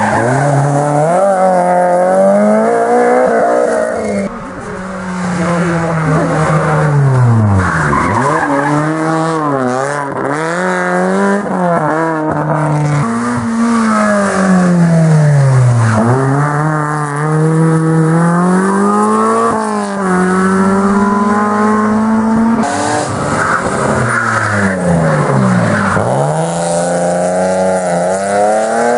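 Rally cars, one after another, revving hard through the gears: each engine's pitch climbs and then falls away when the driver lifts and downshifts for the bend, several times over.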